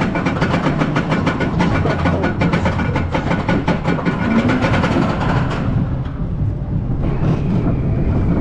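Cobra's Curse spinning roller coaster car running along its track: a rapid, even clicking over a low rumble. About five and a half seconds in, the clicking stops and a softer rumble carries on.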